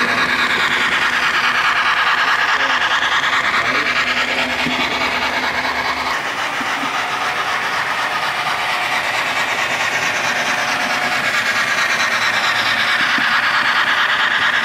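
HO scale model train running on the layout track: a steady whir of the motor and wheels on the rails, easing around the middle and building again near the end as a train passes close.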